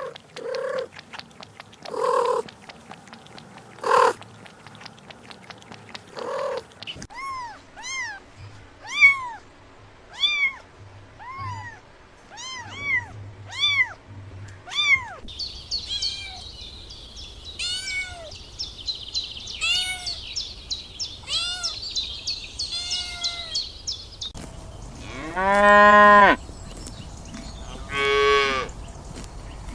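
Kittens meowing in a series of short, arched calls, about one a second, with a high hiss behind them in the second half. Near the end come two long, louder, lower-pitched calls.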